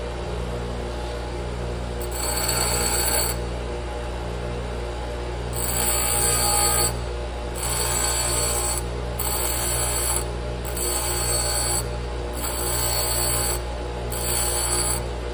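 Bench grinder running with a steady hum while a 3/32 tungsten electrode is pressed to the wheel in seven short passes of about a second each, each pass a hiss of grinding. The edge is being taken off the end of the tungsten that goes into the torch collet.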